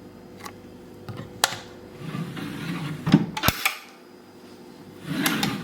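Handling noise: a few scattered light clicks and knocks with faint rustling between them, the sharpest a little after three seconds in.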